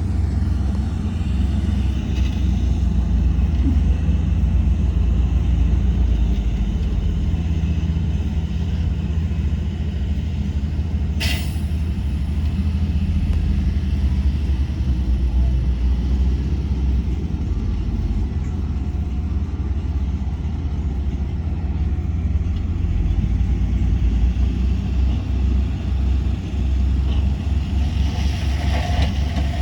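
Heavy diesel earthmoving machinery (bulldozer and dump trucks) running steadily with a low rumble. About eleven seconds in there is a short, sharp hiss.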